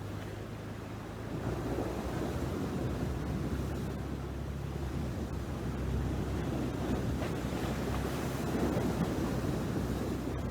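Steady rushing noise of wind buffeting the microphone, mixed with surf washing on the shore, growing slightly louder about a second in.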